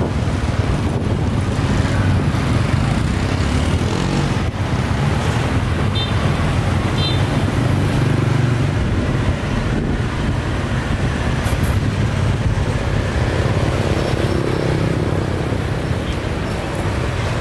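Street traffic: a steady rumble of passing vehicle engines, with two short high beeps about a second apart partway through.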